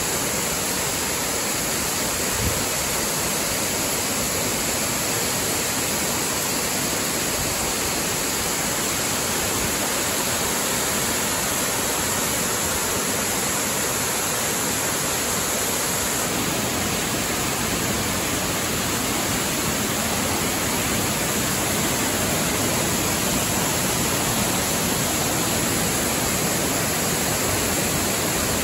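Wide curtain waterfall pouring over a broad crest and down through rocks into a pool: a loud, steady rush of falling water.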